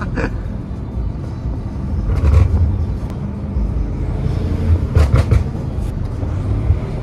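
Twin-turbo 4.4-litre V8 of a BMW M5 F90 with catless downpipes and aftermarket air intakes, heard from inside the cabin while driving. The engine sound sits low and swells louder about two seconds in and again about five seconds in, with a few sharp cracks around the second swell.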